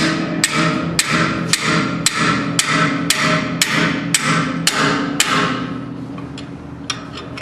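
Hammer pounding a wrench on a decanter centrifuge's hub nut to break it loose: about a dozen ringing metal blows, two a second, which stop about two-thirds of the way through.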